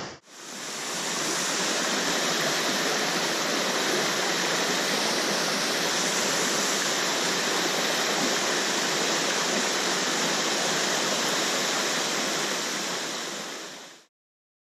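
A small waterfall plunging into a pool: a steady rush of falling water that fades in at the start and cuts off suddenly near the end.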